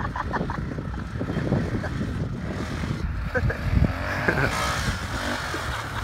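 Kawasaki Bayou KLF400 ATV's single-cylinder four-stroke engine running as the quad is ridden, its pitch rising and falling around the middle. Wind buffets the microphone throughout.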